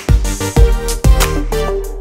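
Background music with a steady beat: a drum hit about every half second over sustained bass and held notes.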